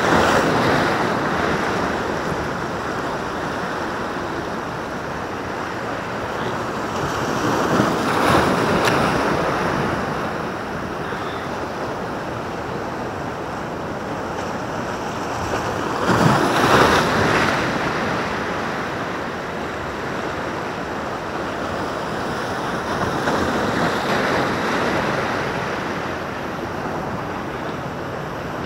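Sea waves breaking and washing over a rocky breakwater, the surf swelling louder four times about eight seconds apart, most strongly about two thirds of the way through.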